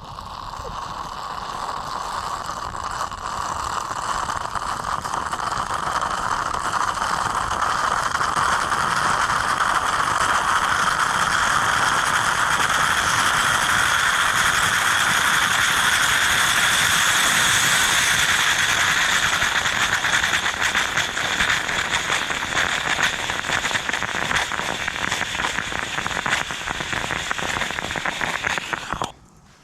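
Food frying in a pan, a dense sizzle and crackle that grows louder over the first ten seconds or so, then cuts off suddenly near the end.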